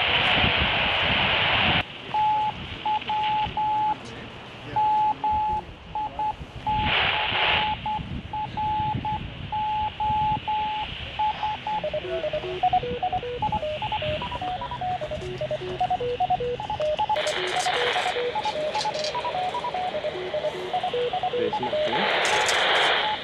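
A hidden fox transmitter's signal coming through a handheld radio's speaker with the squelch wide open. Static hiss first, then a single steady tone keyed on and off in long and short beeps like a Morse code ID, then beeps hopping between several pitches like a short tune. Short bursts of hiss break in a few times; the signal is being received strongly even through 50 dB of attenuation.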